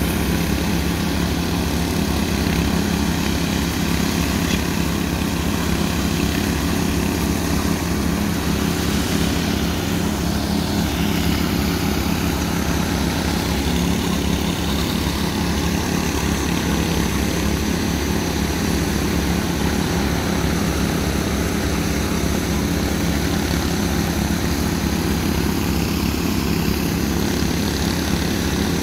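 Two walk-behind concrete power trowels ("helicopters") running steadily, their small petrol engines droning at a constant speed as the spinning blades finish fresh concrete.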